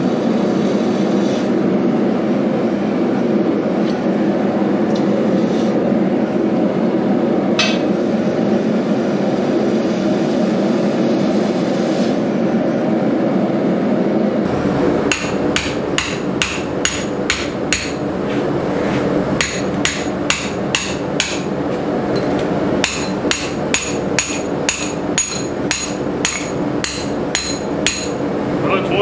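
A steady low rushing noise for about the first half, then a blacksmith's hammer striking hot rebar on an anvil, about two blows a second, each with a bright metallic ring.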